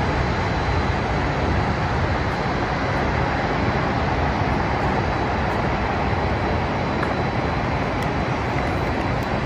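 Steady city traffic noise, an even rumble and hiss with no single vehicle standing out.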